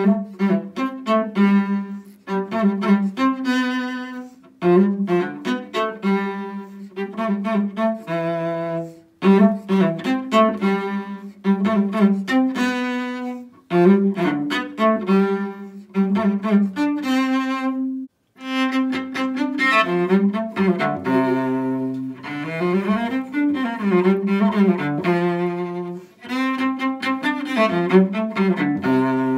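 Solo cello played with the bow: a Christmas carol melody in short phrases with brief pauses between them, and some sliding notes past the midpoint.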